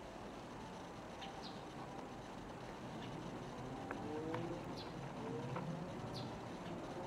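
Outdoor ambience with small birds chirping now and then, and a distant motor vehicle whose engine note rises slowly from about halfway through.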